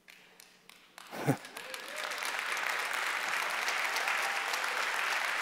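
Audience applause that starts after about a second of near silence and builds to a steady clapping. A brief voice is heard just as the clapping begins.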